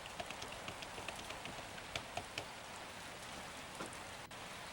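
Steady rain ambience, an even hiss dotted with the ticks of single drops, with a momentary dropout near the end.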